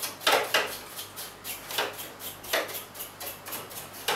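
Small brush scrubbing and scraping on the plastic grille and housing of a split air conditioner's indoor unit, in irregular short strokes with light plastic clatter as the dust is cleaned off.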